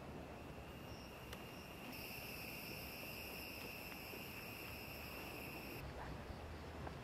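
An insect calling outdoors: a steady, high-pitched buzzing trill that is faint at first, grows stronger about two seconds in, and stops abruptly near the end.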